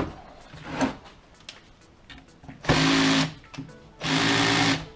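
Parkside cordless hammer drill-driver run in two short bursts about a second apart, its bit boring into cement over hollow brick.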